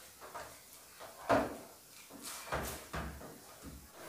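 Dull thumps and knocks of bread dough and tools being handled on a greased work table, the loudest about a second in and a few more near the middle.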